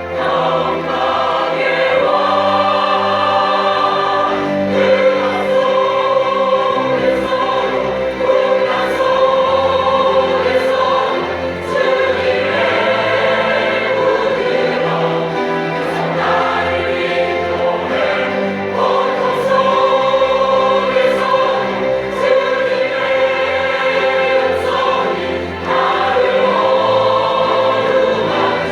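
Combined church choir singing a Christmas cantata in harmony, holding long sustained chords.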